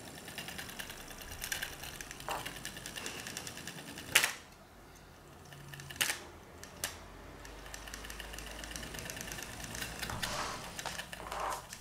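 Small Lego electric motor spinning a plastic fan directly, without the gearbox, at full speed: a fast, even whirring rattle. About four seconds in there is a click and the sound drops quieter, then after a couple of seconds another click and the whir returns.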